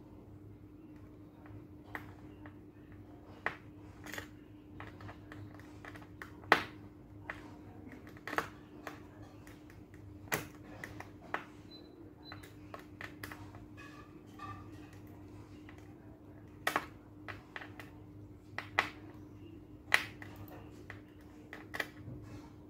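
Irregular sharp metallic clicks and taps as a small screwdriver works a screw and washer into a bag's metal fitting, over a steady low hum.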